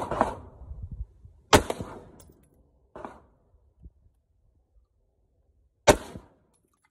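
Single shots from an AR-15 rifle, a Smith & Wesson M&P15X with a tank-style muzzle compensator: a loud crack about a second and a half in and another near the end, each with a short echo. A fainter, duller report comes at about three seconds.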